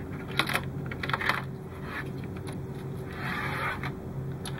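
Fingers handling a plastic model hull and its wiring: a few light clicks and taps in the first second and a half, then a short scraping rustle about three seconds in, over a steady low hum.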